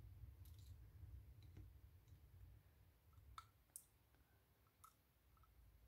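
Faint, scattered clicks of small metal lock pins and tools being handled and set into a wooden pin tray while a lock cylinder is taken apart, the clearest a few seconds in.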